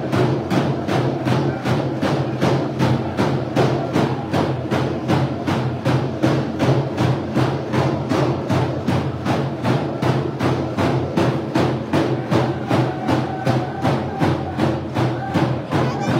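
Dene hand game drumming: a row of rawhide frame drums struck together with sticks in a steady beat of about three strokes a second, with the drummers' voices singing a sustained chant over it.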